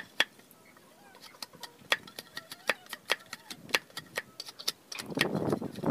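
Machete blade chopping and whittling at a small piece of wood on a log: a quick, uneven series of sharp wooden clicks and knocks, about two to three a second. About five seconds in, a louder rustling noise comes in.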